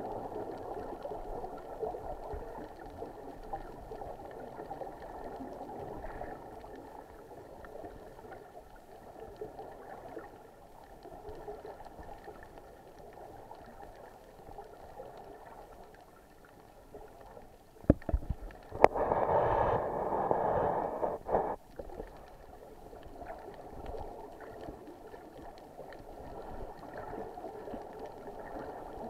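Muffled underwater sound through a camera's waterproof housing: a steady gurgle of water and rising bubbles from divers breathing on surface-supplied air hoses. Partway through come two sharp knocks on the housing, then a louder rush of bubbles for a couple of seconds.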